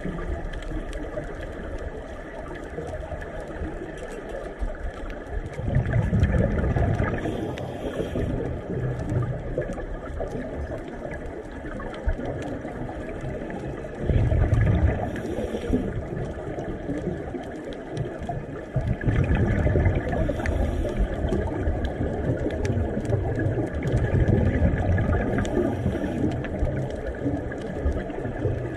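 Underwater sound of a scuba diver breathing: a steady wash of water noise with a louder rumbling burst of exhaled bubbles about every five or six seconds.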